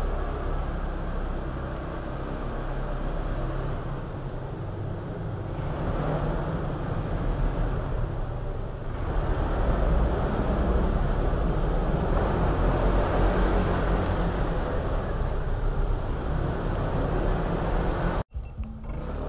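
Motorcycle engine running steadily with road noise from tyres on a wet road, inside a rock-cut tunnel. It grows louder about ten seconds in and cuts out abruptly for a moment near the end.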